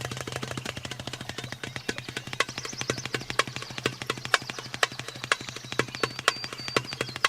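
Darbuka (Arabic goblet drum) playing a fast rhythm of sharp hand strokes over a steady low drone. Birds give high, thin chirps from about a third of the way in and again near the end.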